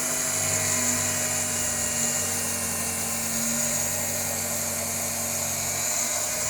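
Octa mini electric cloth-cutting machine running steadily with a constant high motor whine while cutting through a thick stack of t-shirt knit fabric, about 18 layers, without bogging down.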